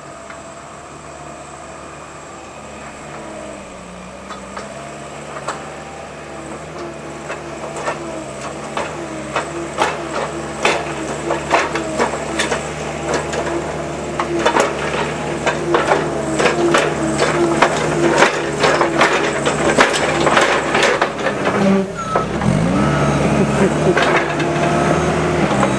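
Manitou telehandler's diesel engine working under load as the machine comes closer and grows louder, with rapid metallic clanking and rattling from its buck rake as it pushes over heaped grass. About 22 seconds in, the engine note dips and climbs again before running on louder.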